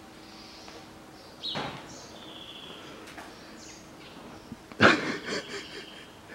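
A sharp metallic clink about five seconds in, ringing briefly, as a burnt-out piston and its connecting rod from a Mitsubishi 4B10 engine are handled against the engine block, with a shorter scrape a second or so in. Faint bird chirps in the background.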